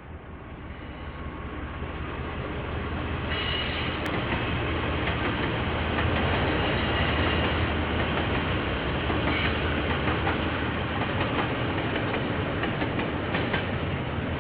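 A KiwiRail train passing, growing louder over the first few seconds, then a steady heavy rumble of the locomotive and wagons. A run of clicks near the end comes from wheels going over rail joints. Heard through a security camera's microphone.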